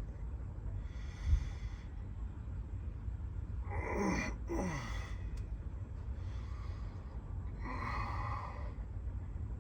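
A drowsy person breathing and sighing: a breath about a second in, a long sigh with the voice falling in pitch about four seconds in, and another breath near the end, over a steady low rumble of distant highway traffic.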